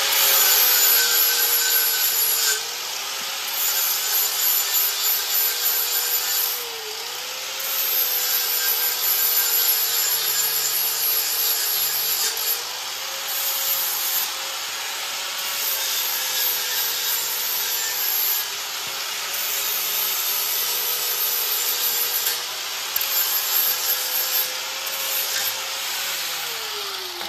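Angle grinder with a grinding wheel grinding steel, the motor's whine dipping each time the wheel is pressed into the work and rising again as it eases off, with a harsh grinding hiss over it. The grinding comes in louder and quieter stretches, and the motor winds down near the end.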